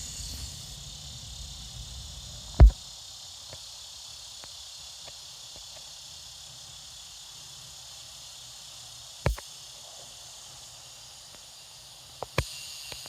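Steady evening chorus of insects, a high even buzz, with a few sharp knocks: a loud one about two and a half seconds in, another around nine seconds, and two close together near the end.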